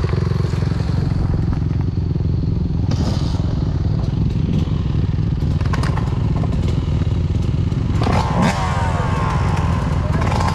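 Dirt bike engine running steadily under way, with clattering knocks about three seconds in and again around eight seconds in.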